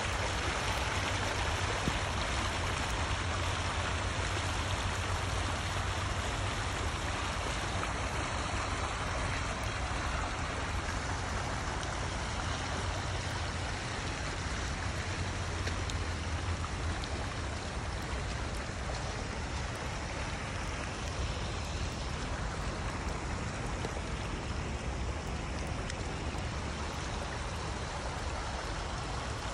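Rain-swollen stormwater runoff rushing in a shallow stream over leaf-littered ground, a steady, even rush of water.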